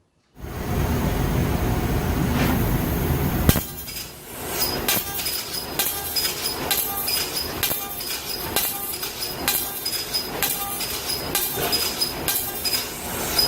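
CO2 laser cutting machine at work: a steady rushing noise for the first three seconds or so, ending with a click, then the laser head's gantry clicking and whirring back and forth about twice a second.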